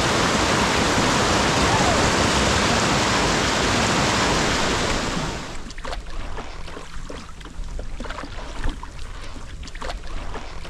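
Whitewater rapids rushing loudly around a canoe. About five and a half seconds in the rush cuts off suddenly, leaving quieter wind and light water noise.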